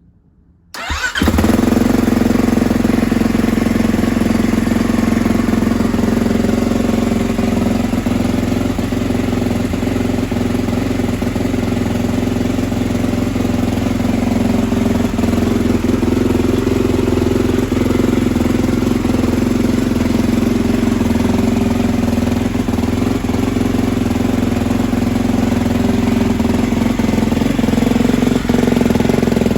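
2020 Kawasaki KX450's single-cylinder four-stroke engine on its stock exhaust firing up about a second in, then running steadily: a cold start with the choke on.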